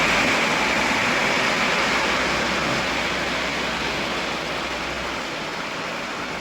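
Steady rain with water running, an even hiss that slowly grows quieter.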